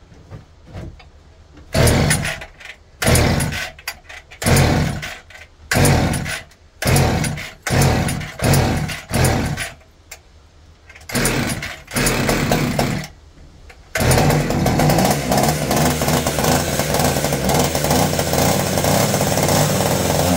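Frontier two-stroke chainsaw being pull-started: it sputters briefly on about eight pulls, a second or so apart. About two-thirds of the way in it catches and runs steadily on old mix poured into it, with hard starting that the owner puts down to carburetor trouble.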